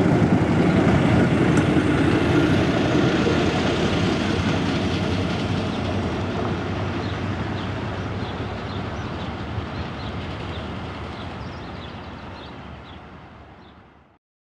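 Hi-Rail truck running along the railway track, its engine and wheels on the rails making a steady rumbling noise. It is loudest at first, dies away gradually and cuts off just before the end.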